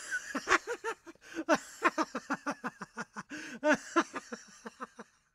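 A man laughing: a long run of quick 'ha' syllables that trails off near the end.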